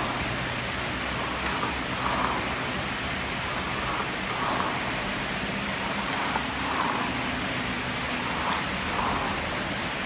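Air rowing machine's fan flywheel whooshing steadily, swelling and easing again with each stroke of the rower.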